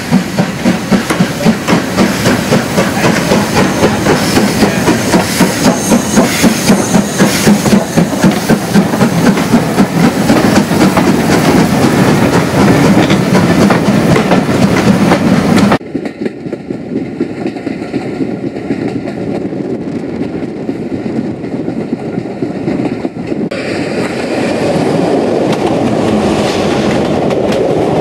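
LMS Stanier Class 8F two-cylinder steam locomotive pulling away with a train, its exhaust beats coming quicker as it gathers speed. After a sudden cut about sixteen seconds in, the steady rolling rumble and clatter of a train in motion.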